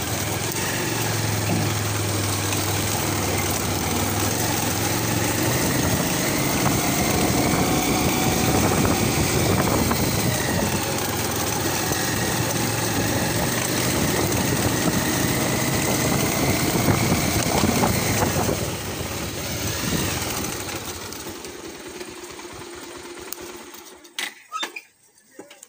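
Motorbike being ridden: the engine runs steadily under wind and road noise, its pitch rising and falling with the throttle. It eases off about 18 seconds in and falls quiet near the end, leaving a few short knocks.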